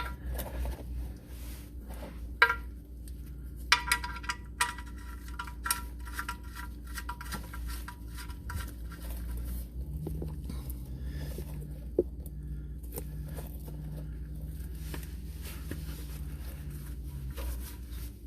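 Several sharp metallic clinks and knocks as tools and parts are handled under the car. A few of them ring briefly, over a low steady hum.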